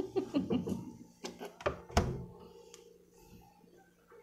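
A few light clicks and knocks, then a single solid thump about two seconds in: a hotel mini fridge door being shut.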